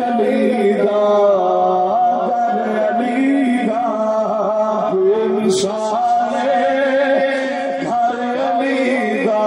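A man's voice chanting in a slow, drawn-out melody, amplified through a loudspeaker. There is a short sharp click about halfway through.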